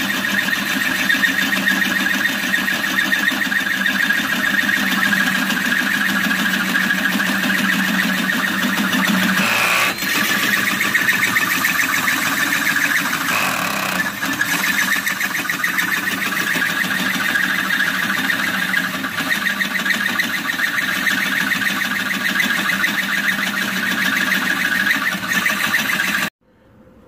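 Drill driving a 2-1/8-inch hole saw through steel: a steady cutting noise with a fast chatter that stops abruptly just before the end as the hole is cut through.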